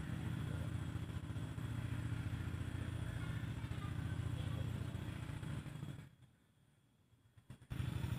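Small engine running steadily with a low, evenly pulsing rumble. It drops to near silence about six seconds in and comes back near the end.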